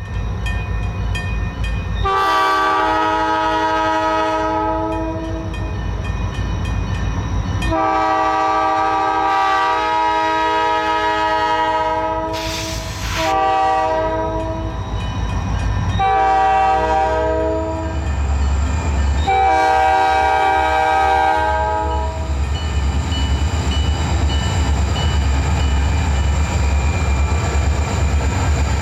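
A diesel freight locomotive's multi-chime air horn sounds a series of long and short blasts for a grade crossing. The diesel engine and rolling train rumble grow louder as the train passes the crossing.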